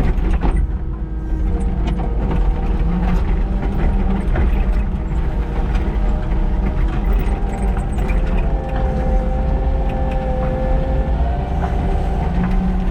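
Kubota SVL97-2 compact track loader's diesel engine running under load while its bucket scrapes frozen ground, with a steady whine that steps up in pitch about eight seconds in and scattered clanks from the tracks and bucket.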